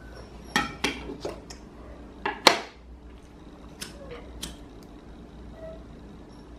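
Scattered clicks and knocks of a glass candle jar being handled on a wooden shelf. The sharpest knock comes about two and a half seconds in, and a few lighter clicks follow.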